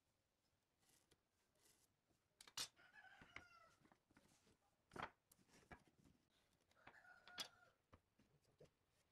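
Faint clicks and knocks as a steel square and pine boards are set down and shifted on a wooden workbench, with a chicken calling twice in the background.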